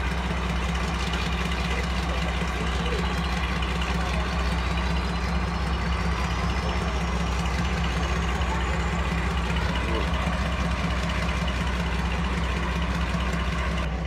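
BR Class 42 Warship diesel-hydraulic locomotive D821 'Greyhound' idling at a standstill, its twin Maybach V12 diesel engines running steadily. A faint high whine rises slowly in pitch through the middle.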